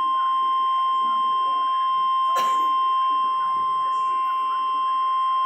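NOAA Weather Radio warning alarm tone, a single steady 1050 Hz tone held without a break, played through a Midland WR-400 weather radio's speaker. It is the alert tone that comes before a new warning message is read. A brief crackle is heard about two and a half seconds in.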